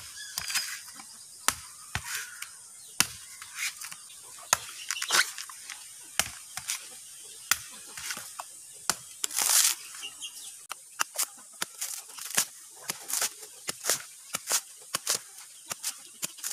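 Machete blade chopping into the husk of a whole coconut: a series of sharp, irregular strikes, at times several a second, with a longer scraping rasp about halfway through as the husk is worked loose.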